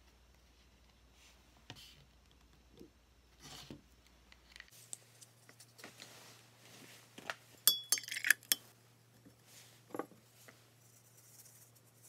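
Small handling sounds of painting supplies on a wooden workbench: scattered taps and clicks, a quick run of sharp, ringing clinks about eight seconds in, and a single knock about ten seconds in.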